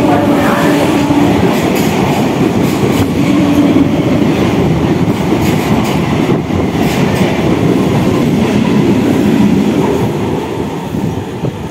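Electric multiple-unit (EMU) local train passing at speed close by, wheels clattering over rail joints under a loud, steady rush. A horn note that is already sounding cuts off about a second in. The sound falls away over the last couple of seconds.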